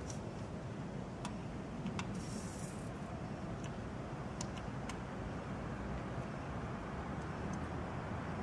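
Steady low hum of running equipment, with about eight sharp clicks scattered through it as a computer mouse is clicked.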